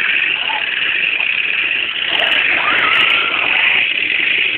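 Remote-control toy tank running, giving a steady, engine-like hum.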